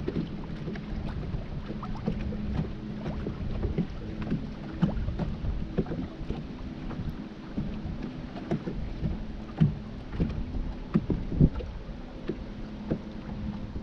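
Bow-mounted electric trolling motor humming steadily as it holds the boat in place, with irregular light slaps of wind-driven chop against the hull.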